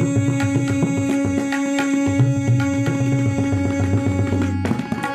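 Instrumental music: quick percussive drum strokes over a steady held drone note, the drone stopping near the end.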